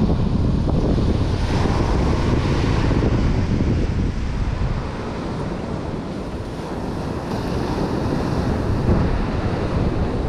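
Ocean surf breaking and washing up the beach, with steady wind buffeting the microphone.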